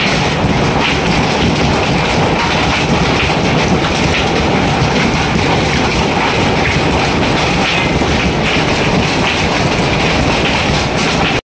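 Hailstones pelting down in a heavy hailstorm, a loud, dense, unbroken clatter.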